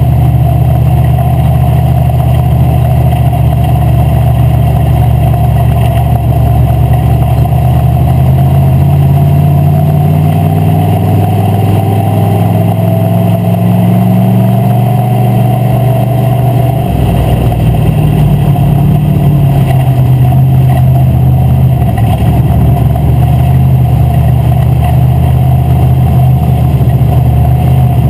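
WISSOTA Street Stock race car's V8 engine heard loud from inside the cockpit, running at low revs. The revs climb gently for several seconds, drop back suddenly about two-thirds of the way in, then hold steady.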